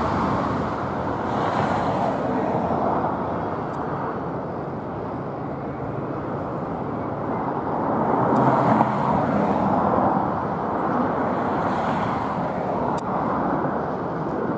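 Jet airliners landing, heard from beside the runway: a steady rushing noise of turbofan engines and air. It dips slightly mid-way and swells again about eight seconds in as an Embraer regional jet comes in over the runway.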